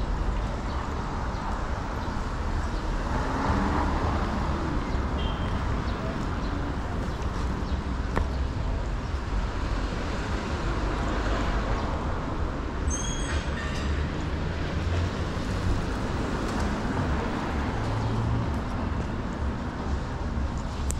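Busy city street ambience: road traffic passing in a steady low rumble. A few short high chirps cut through, about five seconds in and again around thirteen seconds.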